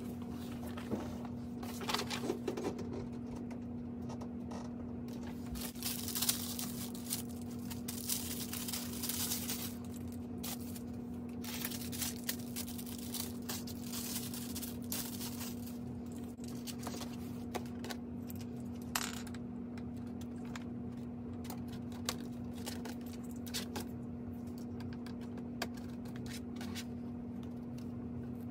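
Panels and small plastic connectors of a cube storage organizer clicking, knocking and clattering as they are handled and fitted together, with some rustling of packaging. A steady low hum runs underneath.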